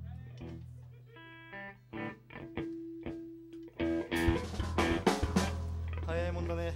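Electric guitars playing sparse single notes over a steady low amplifier hum, with a flurry of drum hits and louder guitar about four seconds in, and a voice starting near the end.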